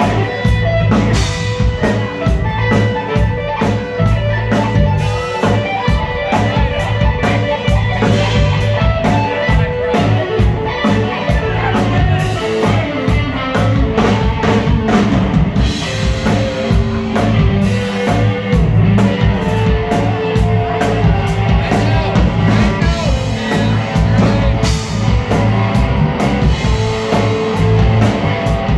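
Live rock band playing: electric guitar, electric bass guitar and drum kit.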